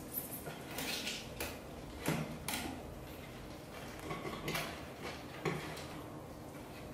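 Short, irregular scuffs and clicks, loudest about two seconds in, as a British Shorthair mother cat licks and grooms her kitten, the two tussling on a wooden floor.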